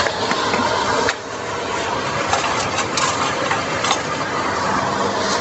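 Tempoyak durian paste frying in a wok over a gas burner: a steady sizzling hiss with a few small crackles and clicks.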